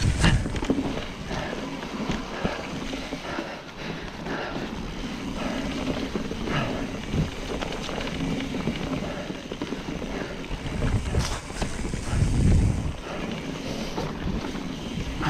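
Trek Fuel EX 9.8 29 mountain bike riding down a wet trail: tyre noise and frequent knocks and rattles as it goes over bumps, with wind on the microphone. A heavier low rumble comes about twelve seconds in.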